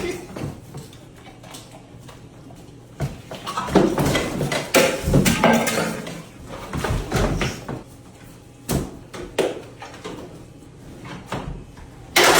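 Irregular knocks and bumps, heaviest about four to six seconds in, with a few sharp clicks later on.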